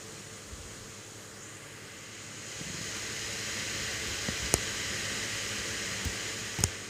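Hands handling a plastic baby doll in knit clothes close to the microphone: a rustle that grows louder about two and a half seconds in, with a few light knocks near the end, the last one the loudest.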